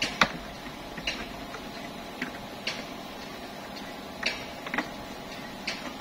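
Irregular sharp clicks and taps, about one a second with the loudest near the start, as the rubber window channel is pressed by hand into a truck cab door's window frame.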